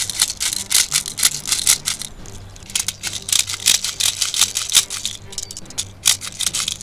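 Quick, irregular clicks and rattles from handling a Beretta STTI airsoft pistol and its magazine, several a second, under faint background music.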